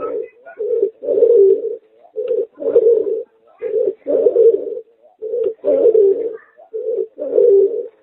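Pigeon × puter dove hybrid (merpater) cooing in a steady repeated phrase: a short low coo followed by a longer one, about every one and a half seconds.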